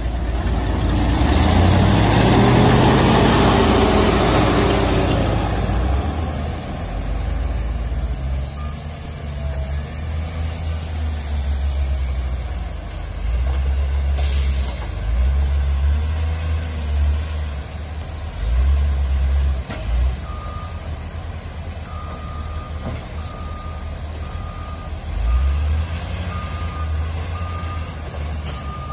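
Diesel engine of a CAT wheel loader with a log grapple revving and working under load, rising and falling in pitch and loudest in the first few seconds. About two-thirds of the way in a reverse alarm starts beeping steadily, about one and a half beeps a second.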